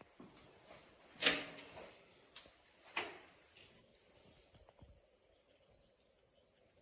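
Two short knocks: a louder one with a brief scrape about a second in, a softer one about three seconds in, over a faint steady hiss.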